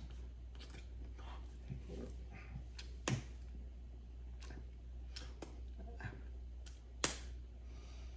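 Scattered sharp clicks and taps, a few seconds apart, the loudest about three seconds in and about seven seconds in, over a steady low hum.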